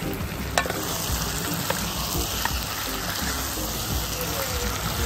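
Food sizzling in a hot pan: a steady hiss that starts with a sharp clack about half a second in, over low street rumble.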